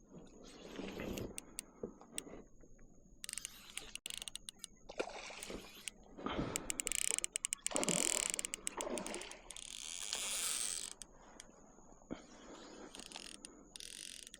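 Baitcasting fishing reel working against a hooked fish: the reel cranked in quick clicking runs and the drag ratcheting as line is pulled off, loudest in the middle of the stretch.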